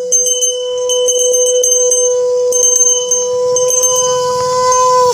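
A conch shell blown in one long, steady note, with a small hand bell jingling and clanging irregularly over it. The note wavers slightly near the end and then cuts off sharply.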